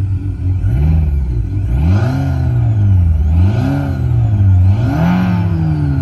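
Simulated road-motorcycle engine sound played through a Renault Clio IV's speakers by a Bluetooth engine-sound gadget, following the car's engine as it is revved in place. It rises and falls in about four rev blips, roughly one every second and a half.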